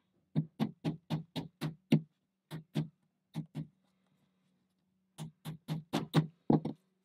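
A small hammer tapping a wooden axle into a plywood part of a model kit: three runs of short, sharp taps, about four a second, with a pause between each run.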